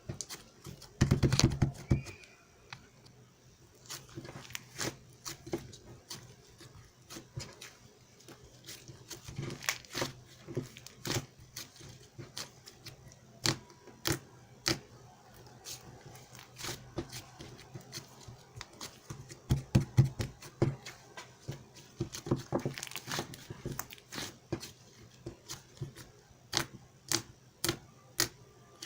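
Irregular clicks and taps with crinkling and rustling, and two louder bursts, one about a second in and one around twenty seconds.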